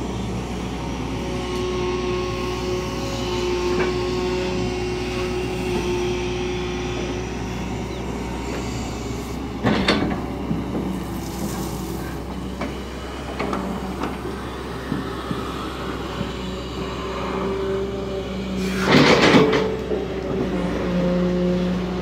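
SANY long-reach excavator's diesel engine and hydraulics running steadily as the long boom works down in the well, a continuous hum with a slight whine that wavers in pitch. Two loud metallic clanks cut through it, a sharp one about ten seconds in and a longer, louder one near the end.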